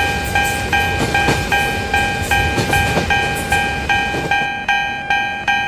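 Japanese railroad crossing alarm ringing its steady repeated clang, about two and a half strikes a second, over the rumble of a passing train that dies away about four and a half seconds in.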